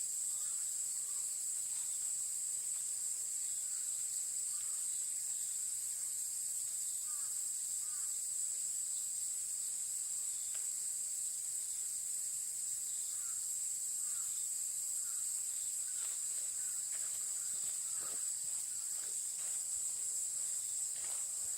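A steady, high-pitched chorus of insects, with faint scattered chirps.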